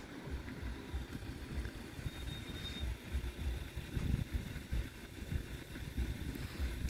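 Wind buffeting the microphone, an uneven low rumble that rises and falls in gusts. There is a brief faint high tone about two seconds in.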